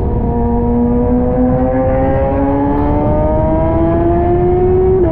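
Kawasaki ZX-6R's inline-four engine pulling through one gear, its pitch rising slowly and steadily, then dropping suddenly at an upshift at the very end. Heavy wind rush on the mounted camera underneath.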